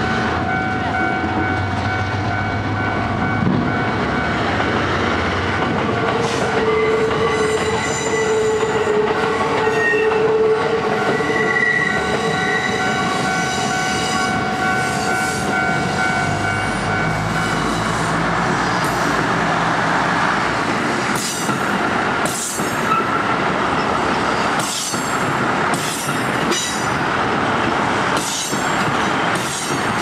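Level crossing warning bell ringing steadily while a KiHa 75 diesel railcar set pulls out. A long low horn note sounds from about seven to eleven seconds in. From about seventeen seconds the train passes close by, with wheel and engine noise and sharp repeated clacks as the wheels cross rail joints.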